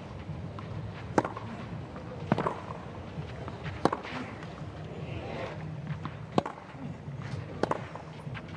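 Tennis rally: racquets striking the ball, about six sharp hits roughly a second and a quarter apart, over the low hum of a hushed stadium crowd.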